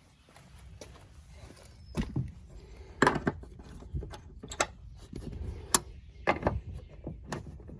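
Scattered clicks and knocks of truck interior trim parts being handled and fitted, about a dozen sharp taps at uneven intervals, the loudest about three seconds in and again just before six seconds.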